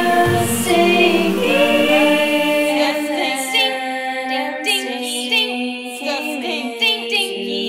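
A recorded song: voices singing in harmony on held notes, which break into shorter, more broken-up notes about halfway through.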